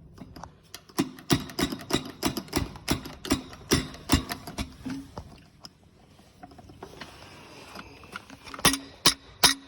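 Repeated sharp taps, about three a second, each ringing briefly, as the factory-sealed dishwasher inlet knockout plug of an InSinkErator garbage disposal is punched out. A pause follows, then a few louder strikes near the end.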